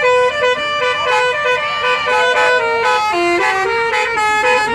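Basuri telolet horn, a multi-tone musical vehicle horn, playing a quick tune of short notes that step up and down without pause.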